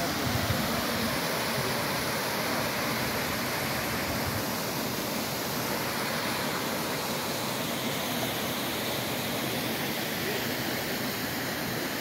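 Triberg Waterfalls cascading down over rocks: a steady, even rush of falling water.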